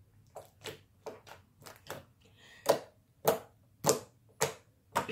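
Day-old homemade slime being poked with the fingers, giving a series of sharp, wet pops. The first few pops are quieter, and from about halfway the pokes come louder, about one every half second or so.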